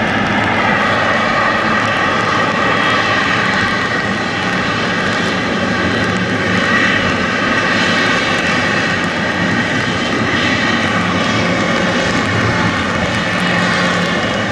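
Boeing 777-300's twin GE90 turbofan engines running steadily and loudly as the airliner rolls by, with several steady whining fan tones over a broad rumble.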